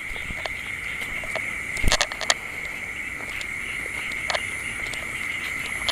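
Steady high-pitched trilling of night insects, crickets. About two seconds in there is a brief cluster of sharp cracks and knocks, and a single click comes a little after four seconds.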